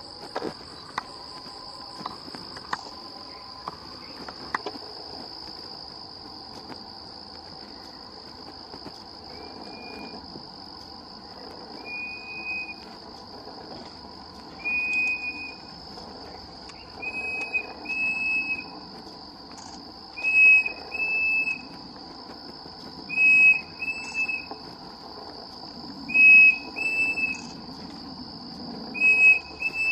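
Pavonine cuckoo singing clear whistled notes: single notes at first, about ten seconds in, then short phrases of two or three whistles every few seconds that grow louder. A steady high insect buzz runs beneath.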